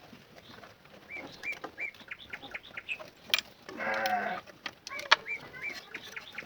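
Animal calls: a run of short, repeated chirps, then one longer, lower call about four seconds in, with a few sharp clicks.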